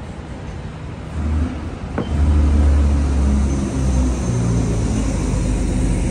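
A motor vehicle's engine driving close by: a low rumble swells about a second in and stays loud, its engine note shifting as it pulls through the street traffic. There is a sharp click about two seconds in.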